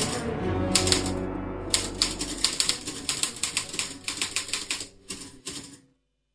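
Manual typewriter being typed on fast: a quick run of sharp key clacks that cuts off suddenly near the end.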